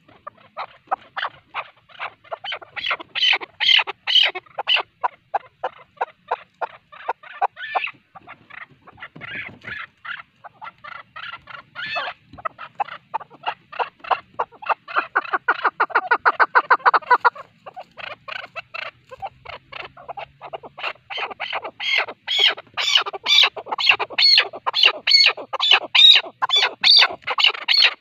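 Chukar partridge calling: a long, unbroken run of sharp clucking notes, about five a second, that grows faster and denser around the middle and louder and higher-pitched toward the end.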